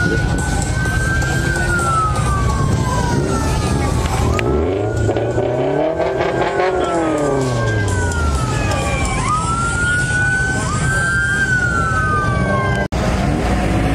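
Police siren wailing in slow rising-and-falling sweeps over a steady rumble of car engines. About midway, a car engine climbs in pitch and falls back again. The sound drops out briefly near the end.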